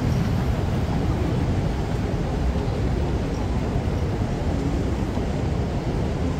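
Steady low rumbling noise of an airport terminal while riding a moving walkway.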